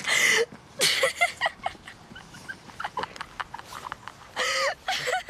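Teenage girl and boy laughing and squealing in a few short, breathy bursts, the loudest near the start and one more about four and a half seconds in.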